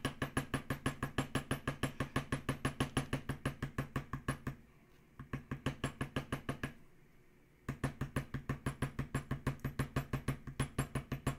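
Mallet tapping a leather-tooling stamp into leather laid on a marble slab: quick, even taps at about five a second, stopping twice briefly near the middle.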